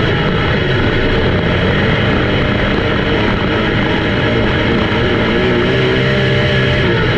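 Race car engines running hard, several at once, in a loud steady drone whose pitch wavers up and down.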